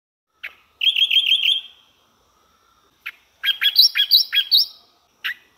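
Songbird singing: two short phrases of quick repeated chirps, about five notes each, each phrase led by a single short call note, with pauses in between.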